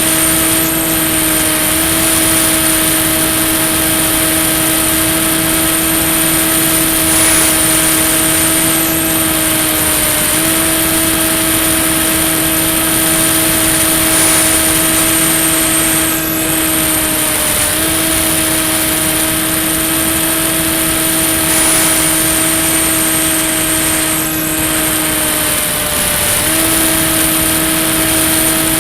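Brushless electric motor and propeller of a Ranger EX RC plane in flight, running steadily with a drone whose pitch dips and recovers slightly every several seconds as the throttle shifts. A thin high whine runs above it.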